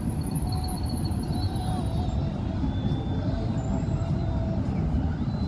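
Steady low rumble of road traffic and wind on the microphone, with faint distant voices.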